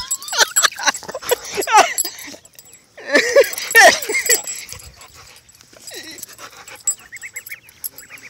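Pit bull whining and yipping excitedly in rough play, loudest in the first half, with fainter whimpers near the end. Rubbing and knocking sounds as the phone is pressed against the dog's fur.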